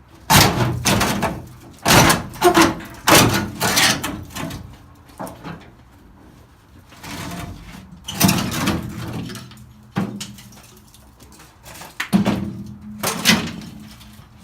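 Sheet-metal car fender being worked loose and pulled off: a dozen or so irregular loud bangs and scrapes, some in quick clusters, with pauses between.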